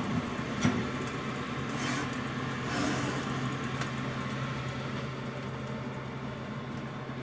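Steady low hum of a running kitchen appliance, with a light knock about half a second in as a loaf pan is set on the wire rack of an open oven.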